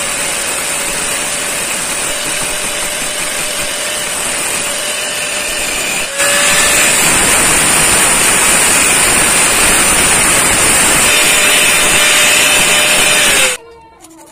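Angle grinder with a thin cut-off disc cutting and grinding a small bolted metal bracket (a leaf-spring hanger plate), a steady motor whine under harsh grinding noise. It grows louder about six seconds in and shuts off near the end, its whine falling as the disc spins down.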